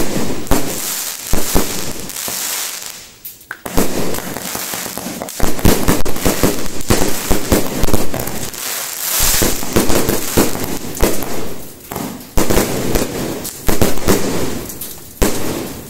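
Aerial fireworks bursting overhead at close range: a dense run of sharp bangs mixed with crackling, with brief lulls about three seconds in and about nine seconds in.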